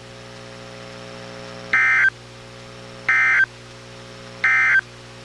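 Three short bursts of EAS SAME digital data tones, about a second apart: the end-of-message code that closes a NOAA Weather Radio tornado warning, received on a Reecom R-1630 weather radio. A steady low hum runs under the bursts.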